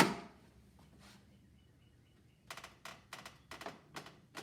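Craftsman 3/8 in. click-type torque wrench breaking with one sharp click right at the start as it reaches its 40.1 setting against a torque adapter, followed about two and a half seconds in by a run of quieter clicks as the wrench is worked back.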